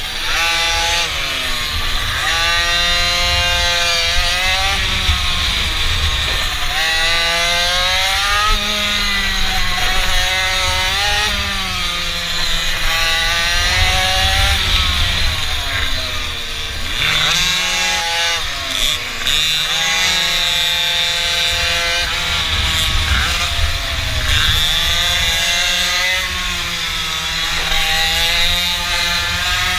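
Small mini-bike engine running hard, its pitch climbing and dropping again every few seconds as the throttle is opened and closed, with a steady low rumble of wind on the microphone.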